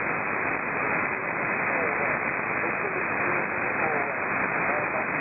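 Single-sideband shortwave receiver on the 80-metre amateur band giving steady hiss and static, with a weak amateur station's voice faintly heard under the noise.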